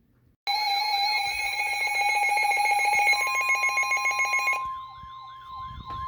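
Weather radio alert alarms going off for a severe thunderstorm warning. A harsh, rapidly pulsing electronic alarm starts about half a second in. A steady NOAA Weather Radio warning alarm tone joins about three seconds in. Near the end the pulsing changes to a fast, repeating falling siren wail over that tone.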